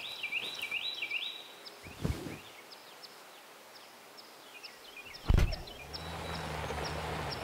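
A car door slams shut about five seconds in, the loudest sound here, after a softer thump about two seconds in, while birds chirp. A low steady hum starts just after the slam.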